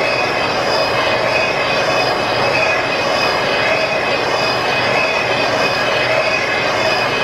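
Horizontal boring mill's rotating boring bar cutting the end of a newly fitted cylinder sleeve on a hit-and-miss engine cylinder, hand-fed. The steady metal-on-metal cutting noise carries several held high tones.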